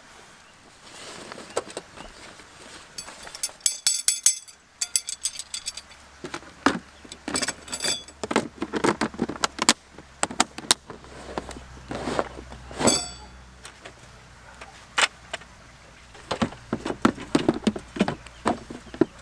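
Camping gear being loaded into the back of a 4WD: irregular knocks and bumps of plastic boxes and bags being shifted, with two bursts of metallic jangling, about four seconds in and again near eight seconds.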